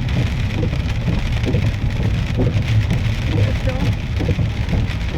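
Heavy rain falling steadily, a dense patter over a steady low rumble.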